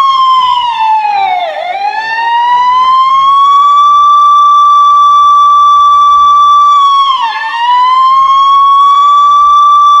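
Police car siren holding a loud, steady high wail. Its pitch dips twice: a deep drop about a second and a half in that climbs slowly back, and a shorter dip around seven seconds in.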